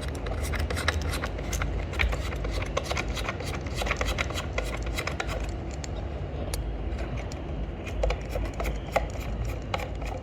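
Close hand-handling noise: a dense, irregular run of small clicks, taps and rubbing over a low rumble, as speaker cable is fitted to a small center speaker.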